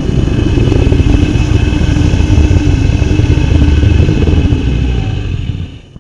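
Loud, deep rumbling with a steady high ringing tone over it, which fades a little and then cuts off abruptly near the end.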